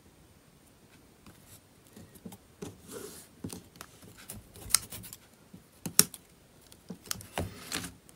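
Small clicks and short scratches of fingers handling a thin strip of double-sided adhesive tape and pressing it along a tablet's frame. The sound starts after about two seconds of quiet, and the two sharpest clicks come about five and six seconds in.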